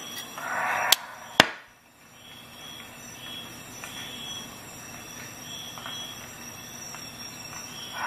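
Folding saw blade of a Ratnik 6E6 multi-tool being swung open by hand. A brief rustle of handling is followed about a second in by two sharp metal clicks about half a second apart, the second the louder, as the blade is opened.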